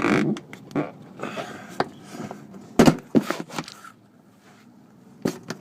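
Plastic wheel-well flaps being pulled off by hand: a series of separate snaps and knocks, the loudest pair about three seconds in.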